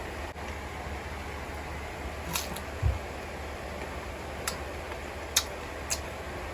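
Eating sounds: a few short, sharp crunching clicks at uneven intervals and one low thump about three seconds in, over a steady low hum.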